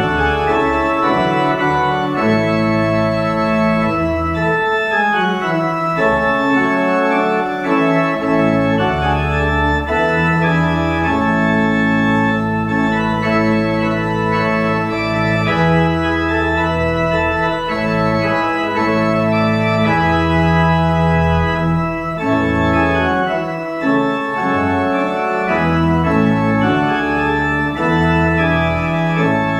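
Pipe organ playing the closing postlude of a church service: full sustained chords over a deep pedal bass, the harmony changing every second or two.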